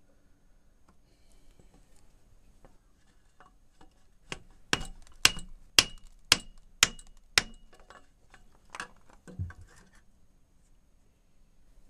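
Six sharp metallic knocks about half a second apart, each with a brief ring, then two softer knocks: a wooden-handled tool being struck against the old spin-on oil filter of a Yamaha XJ900S engine to work it loose.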